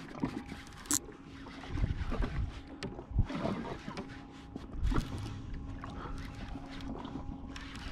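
Handling noise on a fishing kayak while a hooked fish is fought: a few dull knocks and thumps on the hull, with a sharp click about a second in. Underneath are wind and water noise and a faint steady hum.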